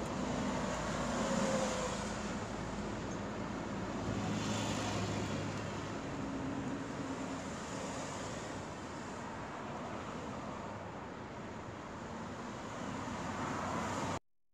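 Steady road traffic noise with a low hum that swells for a couple of seconds near the middle. It cuts off abruptly near the end.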